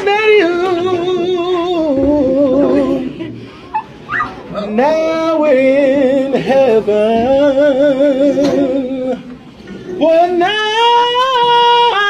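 A voice singing long held notes with a wavering vibrato, in three phrases with short breaks about three and a half and nine and a half seconds in.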